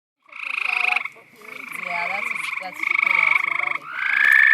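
Frogs calling at close range: a run of loud, rapid trills, each lasting about a second, one after another with hardly a break.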